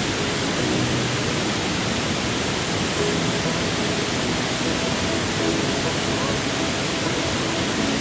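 Loud, steady rush of a waterfall, with faint voices underneath.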